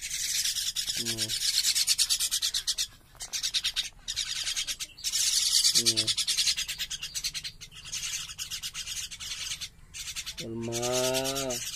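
Young common mynas making harsh, raspy, rapidly pulsing begging calls with beaks gaping, in bursts of a few seconds.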